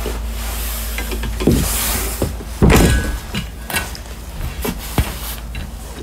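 Handling noise from a metal fold-down frame at the rear ramp being moved and latched: a few rustling scrapes and clunks, the loudest about three seconds in, and sharp metal clicks near the end, over a steady low hum.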